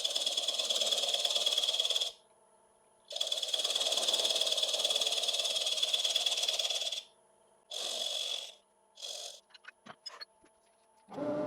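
A scraper cutting the spinning bottom of a wooden bowl on a lathe, a rasping cut with a steady high ring. It comes in two long passes, then two short touches, followed by a few faint clicks.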